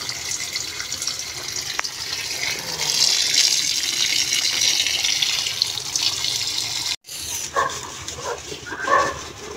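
Tap water pouring in a steady stream into a plastic basin of wet clothes being worked by hand. The stream cuts off suddenly about seven seconds in, and a dog gives a few short, high-pitched whines.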